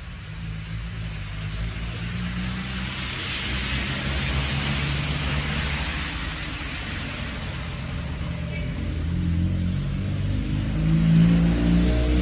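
A car going by, its engine hum steady underneath while tyre noise swells and fades a few seconds in; the engine grows louder near the end.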